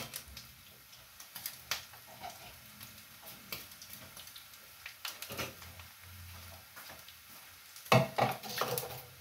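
Meat frying in a pan with a faint sizzle and scattered small crackles. A couple of sharper knocks stand out, the last about eight seconds in, as a spoon knocks against a bowl.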